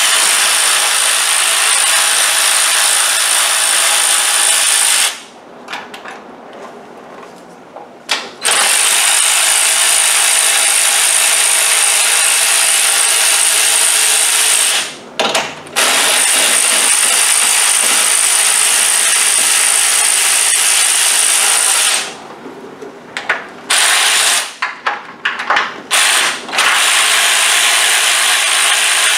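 Power ratchet spinning out valve cover bolts, running in long stretches of several seconds with pauses between bolts and a few short blips near the end.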